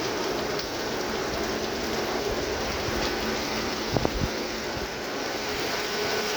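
Heavy rain falling steadily, an even hiss, with a couple of brief low knocks about four seconds in.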